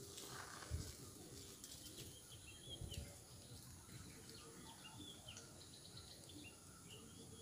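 Faint outdoor ambience with small birds giving short chirps throughout, and two soft low thumps, one about a second in and one about three seconds in.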